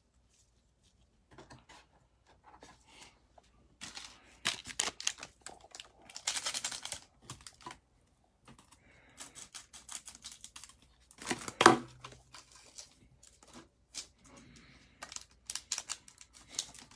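Wrapper of a 2019-20 Panini Mosaic basketball trading-card pack crinkling and tearing as gloved hands handle it and open it, in scattered short crackly bursts.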